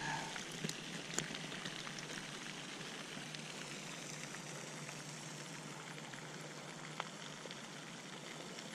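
Faint, steady outdoor hiss with a few soft ticks.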